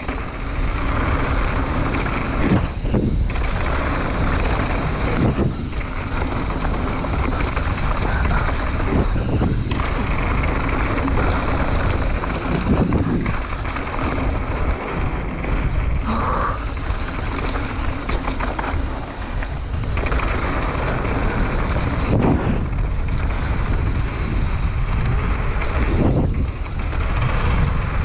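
Santa Cruz Nomad mountain bike descending fast on a dirt trail: steady wind noise on the action camera's microphone over knobby tyres rolling on dirt and leaves, with brief lulls every few seconds.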